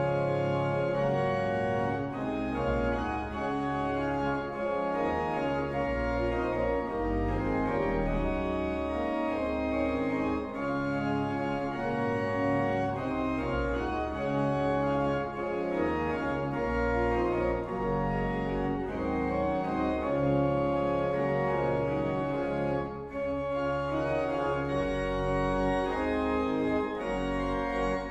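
Organ music: sustained chords over a moving bass line, the notes changing every second or so at a steady level.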